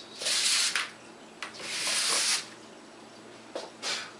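Sanding block rubbed back and forth along a carbon fiber strip, roughing one side so glue will bond better: two loud scratchy strokes, the second the longest, then a couple of short fainter scrapes near the end.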